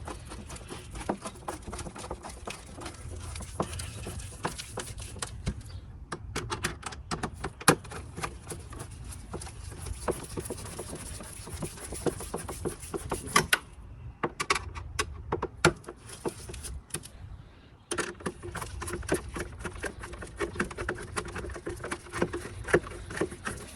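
A screwdriver tightening the Phillips screws that hold the engine air filter box cover: a long run of rapid small clicks, with a few short pauses.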